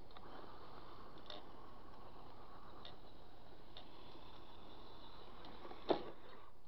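Steady low outdoor hiss with a few faint ticks, then one sharp knock near the end as the Remo Hobby trail crawler RC truck's dually tyres hit the pile of wooden boards and fail to climb it.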